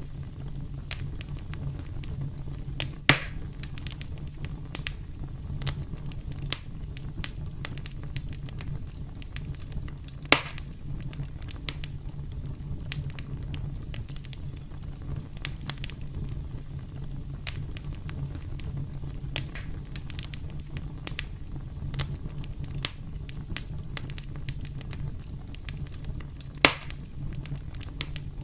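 Campfire burning with a steady low rumble and constant crackling. Three louder pops stand out, about three seconds in, ten seconds in and near the end.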